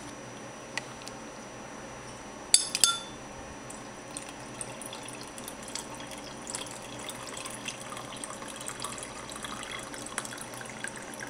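A drink being poured into a glass tumbler holding fruit pieces: a steady splashing fill, with a few sharp clinks against the glass about two and a half seconds in.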